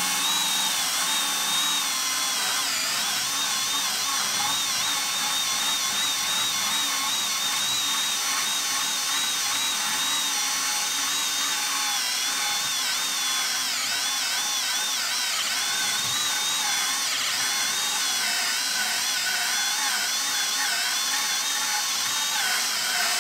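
Kobalt brushless hammer drill running without pause under heavy load, cutting a 3-inch hole saw through a thick wooden board. Its motor whine is steady and high, and wavers slightly in the second half.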